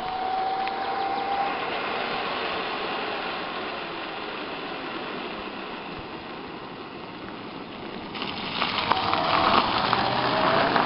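Electric moped's motor whining as it rides up and passes close, getting louder over the last two or three seconds, its pitch gliding up and down with the throttle, over a steady hiss.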